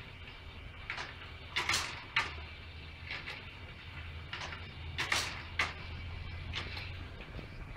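Scratchbuilt Newcomen atmospheric steam engine running through its cycle. A short hiss is followed about half a second later by a sharp clack from the valve gear, twice, about three and a half seconds apart, with lighter clicks in between.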